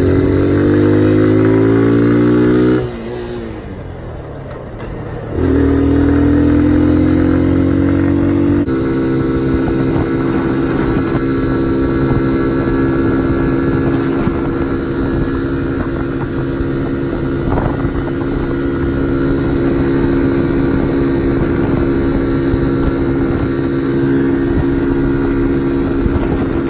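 Kawasaki Z125 Pro's single-cylinder four-stroke engine riding under load: the revs climb, fall away for about two seconds as the throttle rolls off, climb again, then hold steady at a cruising speed from about nine seconds in.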